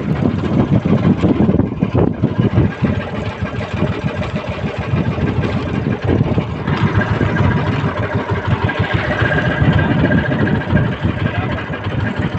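A small fishing boat's engine idling steadily.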